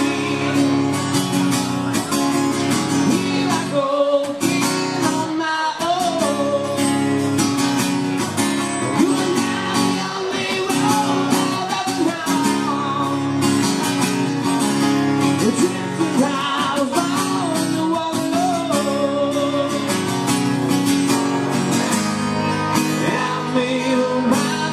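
Live acoustic music: two acoustic guitars strummed together while a man sings lead.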